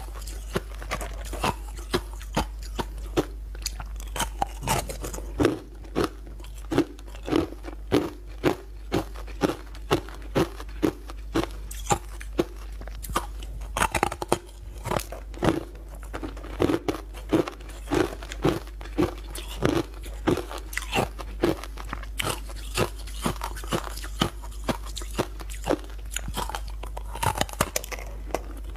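Close-miked crunching and chewing as a person bites into hard, crystalline pale-yellow chunks: a steady run of sharp crunches, often about two a second.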